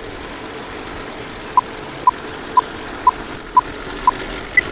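Old film-countdown sound effect: a film projector's steady mechanical whirr, with six short beeps at one pitch about twice a second, then a single higher beep at the end.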